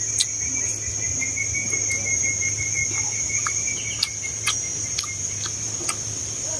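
A steady, high-pitched drone of insects, broken by scattered short, sharp clicks of wooden chopsticks and eating.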